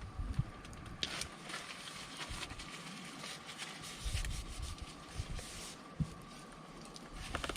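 Wood campfire burning, crackling with irregular small snaps and pops, one sharper crack about a second in.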